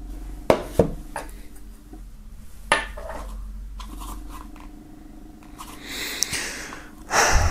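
Handling sounds from a cardboard box and a small leather-look shot-glass case with a snap-button flap. A few light knocks and clicks come in the first three seconds as the box is put down and the case picked up. Soft rubbing follows as the case is opened, swelling into a short rustle near the end.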